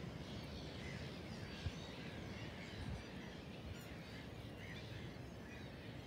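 Faint outdoor background with small birds chirping sporadically, and one soft tap about a second and a half in.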